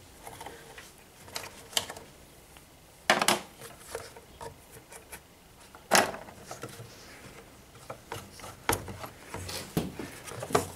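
A rubber air-intake hose being worked loose from the turbocharger by hand: rubbing and handling noise with scattered knocks and clicks, the loudest about three and six seconds in.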